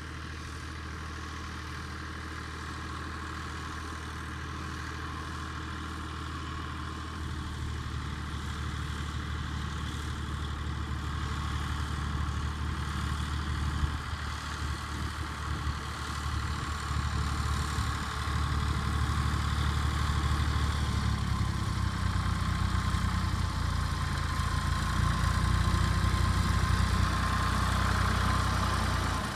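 Tractor engine running with an Amazone Grasshopper GHS 180 flail mower-collector, with a steady high whine over the engine hum. The engine picks up speed and grows louder in steps, about seven seconds in and again around twenty seconds in.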